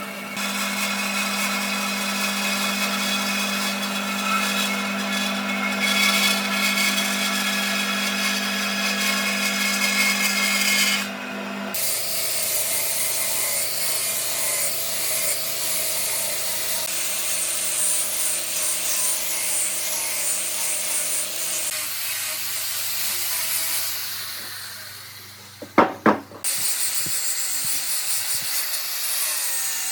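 Electric power tool running against wood, a steady motor hum under rough grinding noise. The sound changes abruptly about a third of the way in, fades briefly near the end, then comes back after a few sharp knocks.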